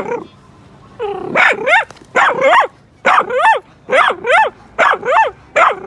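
A dog barking in quick pairs, about one pair a second, each bark sharp and falling in pitch.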